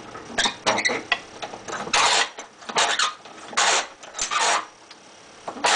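A run of about six short scraping and rattling noises in quick, irregular succession, typical of metal parts being fitted by hand.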